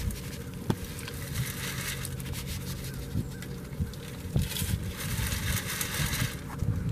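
Dirt shaken through a metal trap sifter's wire screen, a gritty hiss that grows louder about two-thirds of the way through, as the sifted dirt covers a foothold trap.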